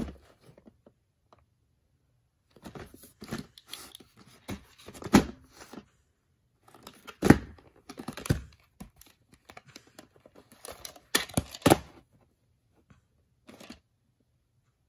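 Hands handling a plastic VHS clamshell case and taking the cassette out of it: irregular rustling and scraping broken by several sharp plastic clicks and snaps, the loudest pair of snaps about three quarters of the way in.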